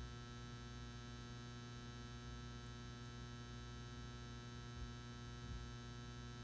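Faint, steady electrical hum of a magnetic M59 metal halide ballast powering a 360-watt high pressure sodium retrofit lamp as it nears full brightness, a low hum with a string of higher steady tones above it.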